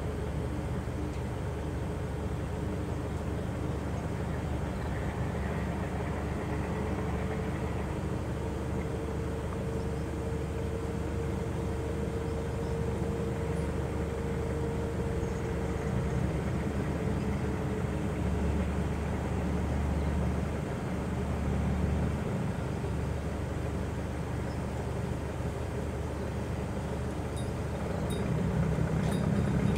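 Outdoor ambience: a steady low engine-like rumble, like road traffic, with a faint hum that comes in about a third of the way through and fades after the middle, growing a little louder near the end.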